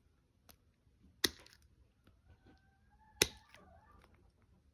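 Hoof trimmers snipping through a goat's hard, overgrown hoof: three sharp clicks, the last and loudest about three seconds in.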